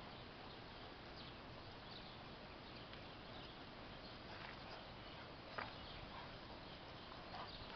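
Faint, steady outdoor background hiss with a few soft taps, one a little clearer about five and a half seconds in; no barking.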